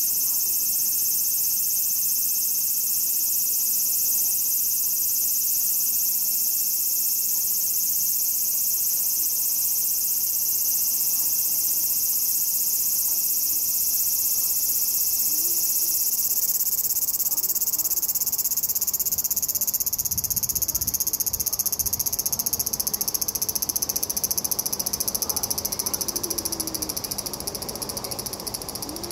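Large brown cicada (aburazemi) calling: a continuous high-pitched buzz that turns choppier about two-thirds of the way through.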